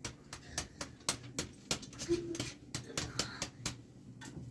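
An irregular series of sharp clicks and knocks, several a second, with a brief low hum about halfway through.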